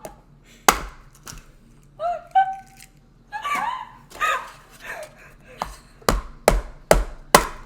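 Eggs being knocked against a hard edge to crack them: two sharp knocks, then four in quick succession near the end. In between, someone makes wordless vocal sounds.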